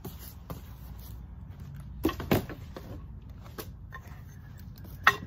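Handling noise from teak outdoor-table parts in their cardboard packing box: two knocks about two seconds in and a sharper knock near the end.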